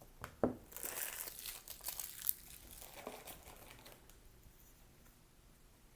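Wrapper of a baseball card pack being torn open and crinkled by hand, with the tearing and crackling loudest about two seconds in, then dying away to faint rustling over the last couple of seconds.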